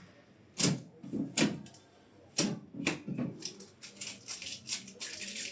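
A few sharp clicks and knocks, the loudest four in the first three seconds, from the fittings inside a new fridge being handled.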